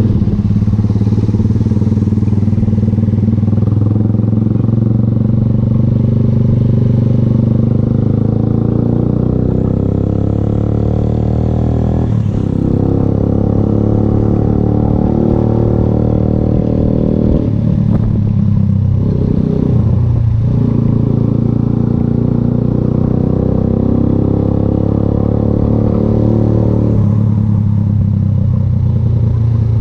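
VLR 200 motorcycle with an aftermarket Devil exhaust can, running at a steady cruising pace. The engine eases off briefly about twelve seconds in and twice more a few seconds later, then changes tone a few seconds before the end.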